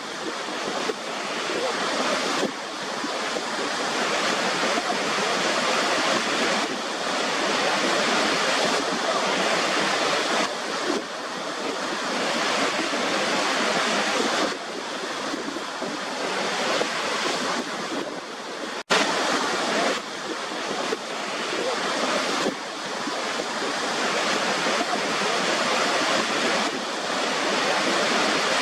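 Waterfall: a steady, dense rush of falling water with small swells in level, cutting out for an instant about 19 seconds in.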